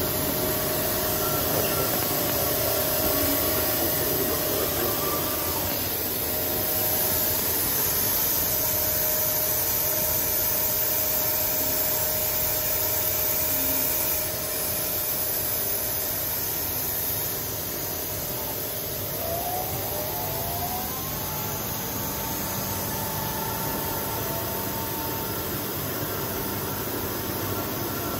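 Steady mechanical running noise with a hiss and a faint whine, as of a Studer S40 universal cylindrical grinder running under power. It gets a little quieter about halfway through.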